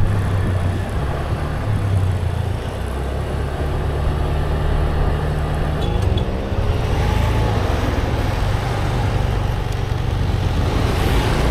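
Motorcycle engine running as the bike is ridden and then brought to a stop. About six seconds in, a passing vehicle adds an engine note that slides up and down.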